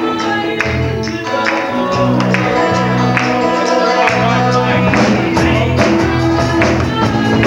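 Live rock band playing: electric guitars and bass over drums, with cymbal strokes at a steady beat.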